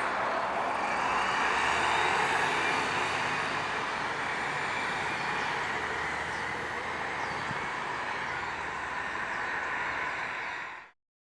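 Blue Bird TX4 bus with a Cummins Westport ISL-G natural-gas engine running, a steady mix of engine and road noise that cuts off sharply near the end.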